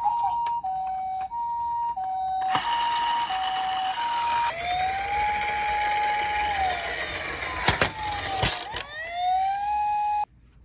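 Emergency vehicle sirens: a two-tone hi-lo "pi-po" ambulance siren alternating about one and a half times a second, then a wailing siren that rises, holds and falls. The wail rises again near the end and cuts off abruptly, with a rushing noise and a few sharp clicks under the middle part.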